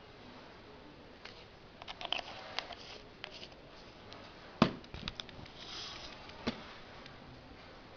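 Scattered light clicks and taps of handling on a tabletop, with one sharp knock about four and a half seconds in and a smaller click about two seconds later.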